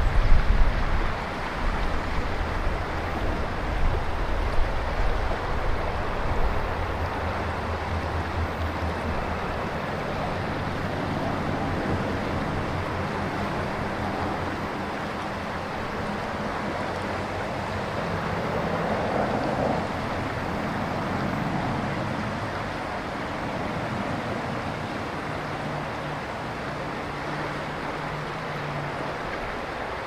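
Ishikari River water flowing steadily, an even rushing noise. Wind buffets the microphone with a low rumble for the first several seconds, then eases.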